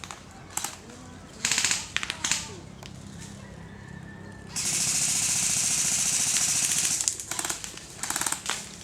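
Airsoft guns firing on full auto: several short rattling bursts, and one longer continuous burst of about two and a half seconds in the middle.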